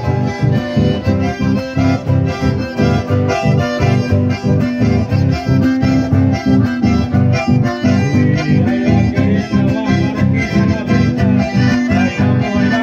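Live chamamé music led by accordions with guitar accompaniment, played through a PA at a steady dance pulse.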